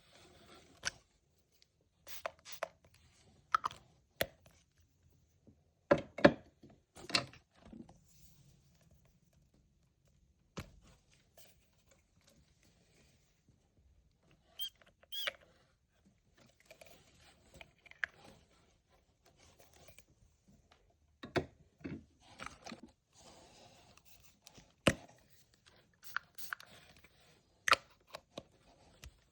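Irregular knocks, clicks and rustling, scattered unevenly with short quiet gaps between them.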